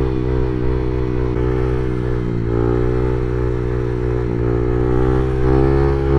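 Motorcycle engine running steadily while riding, its pitch rising and falling gently with small throttle changes.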